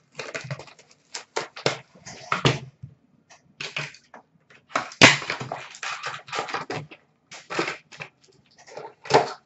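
Hockey card packs being ripped open and cards handled: a run of short crinkling, scratching rustles, with a sharper rip about five seconds in.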